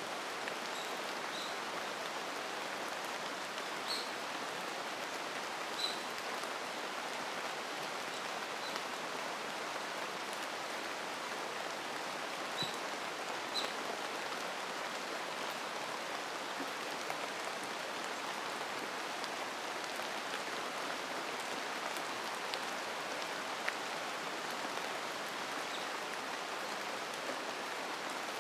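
Steady rain falling in a mountain forest, an even hiss with no breaks. A few brief, high chirps from a bird are scattered through it, mostly in the first half.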